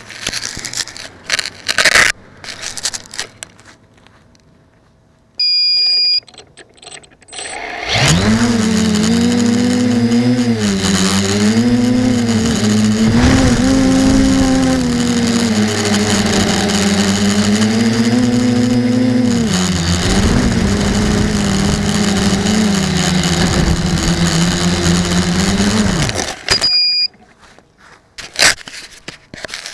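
KK2.1 quadcopter's brushless motors spinning up and running for about eighteen seconds of flight, a steady whine whose pitch rises and falls with the throttle, picked up by a camera on the frame. A short electronic beep sounds before the motors start and another just after they stop, the flight controller's arm and disarm beeps. Knocks of the frame being handled or landing sit at the start and end.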